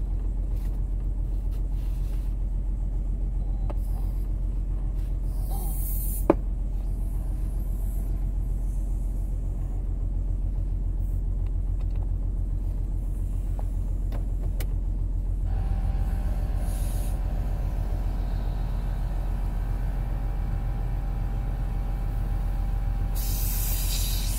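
Car engine idling steadily, still cold from its cold start. About two-thirds of the way through, a portable car air compressor starts up and runs with a steady hum over the idle, and near the end a hiss of air joins in.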